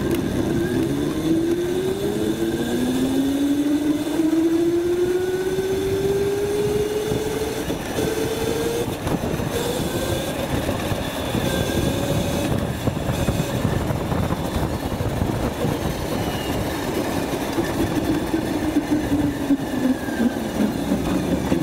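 Electric go-kart's Motenergy ME0708 motor and drive whining under acceleration, the whine rising steadily in pitch for about ten seconds, holding, then falling near the end as the kart slows. Steady road and wind noise runs under it.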